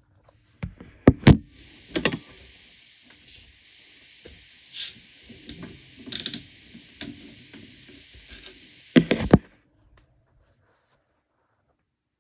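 Carbonation hissing steadily out of a plastic bottle of seltzer water as its screw cap is twisted open, stopping abruptly about nine and a half seconds in. Several knocks and thumps of the bottle and phone being handled on a wooden table go with it, the loudest about a second in and just before the hiss stops.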